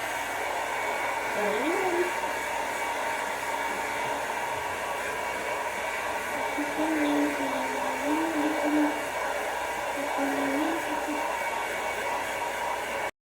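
Handheld hair dryer blowing steadily, with a faint voice wavering under it; the sound cuts off suddenly near the end.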